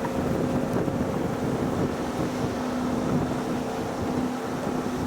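A steady, constant-pitched droning hum, like an engine running, under wind noise on the microphone.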